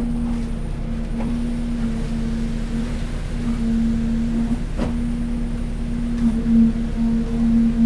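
Concrete poker vibrator humming with a steady high-pitched drone as it is worked in the freshly poured slab, over a low engine rumble from the site machinery. A single brief knock just before five seconds in.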